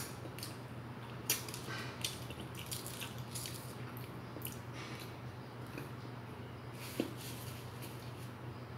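Mouth sounds of a person chewing food: soft wet smacks and small clicks at an irregular pace, over a steady low hum.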